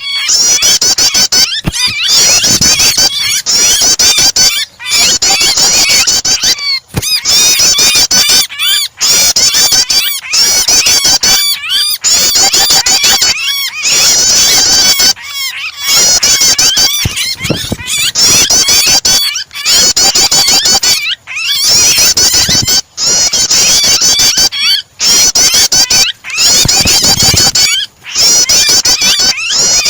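Prenjak (prinia) calls mixed with the frantic distress cries of a pinched bird, a loud, dense run of rapid high-pitched chirps broken by brief gaps every second or two.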